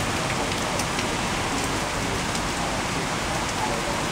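Heavy rain in a downpour: a steady, even hiss of rain hitting the ground, with a few sharper drops ticking through it.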